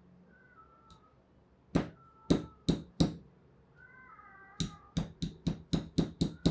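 Sharp clicks or taps: four spaced ones, then a quicker run of about ten, with faint high wavering tones in between.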